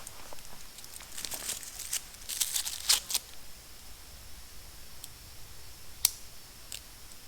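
Crinkling and rustling, like something being handled or torn, in quick clusters of crackles about one to three seconds in, followed by a single sharp click just after six seconds.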